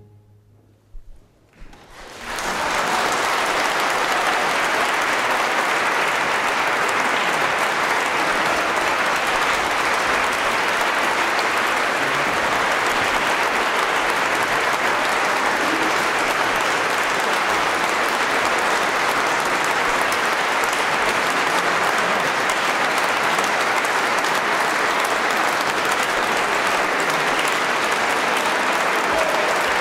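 Concert audience applauding, breaking out about two seconds in after a brief hush and then holding steady.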